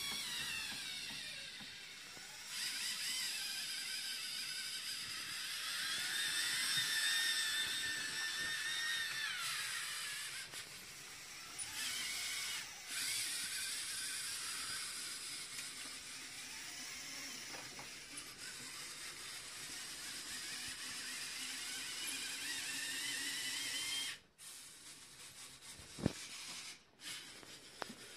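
LEGO Mindstorms EV3 motors and gear trains of a model warehouse's high-bay crane whining as they run. The pitch rises as they speed up, holds steady, then falls as they slow, several times over. Near the end the whine stops and a single sharp tick sounds.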